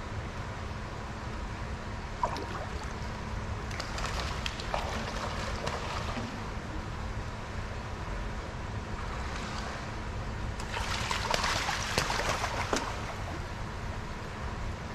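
Splashing water in an indoor exhibit pool over a steady low hum. There are two bursts of splashing, one about four seconds in and a louder, longer one with sharp clicks a couple of seconds later.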